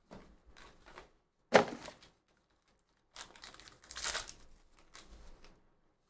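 Handling noise from opening a small black cardboard trading-card box and pulling out a plastic-wrapped card: one sharp crackle about a second and a half in, then a stretch of plastic crinkling a little after the middle.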